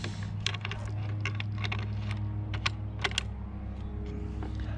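About a dozen small, sharp metallic clicks at irregular spacing as rimfire cartridges are handled and loaded into a rifle magazine, over a steady low hum.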